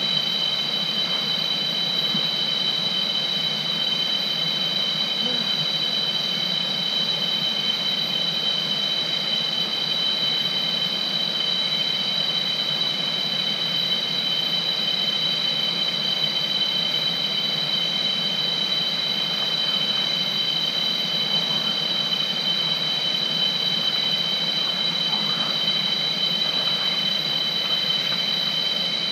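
A steady, high-pitched two-tone drone from rainforest insects, over the even rush of the river.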